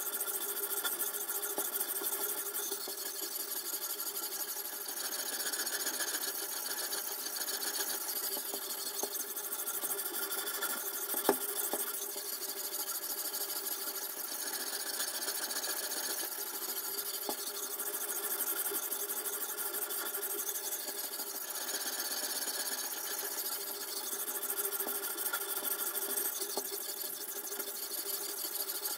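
Sharpening stone on a toohr guided-angle knife sharpener, stroked back and forth along a chef's knife edge: a continuous scraping of stone on steel that swells and eases with the strokes. A single sharp click comes about a third of the way through.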